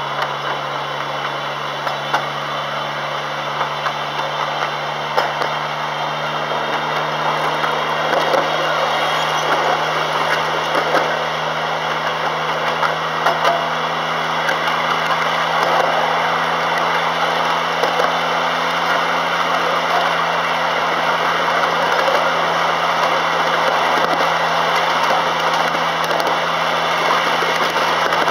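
Miniature railway train running along its track: a steady engine drone from the DA-outline locomotive under a continuous rumble of wheels on rail, with occasional faint clicks. It grows a little louder about a third of the way through.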